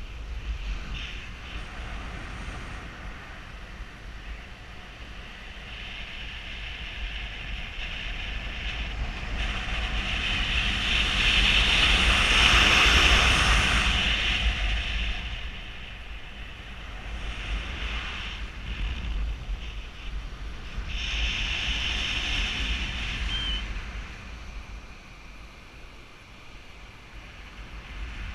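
Wind rushing over a GoPro Hero3's microphone in paraglider flight: a steady low rumble with a hiss that swells to its loudest about halfway through, fades, then swells again briefly.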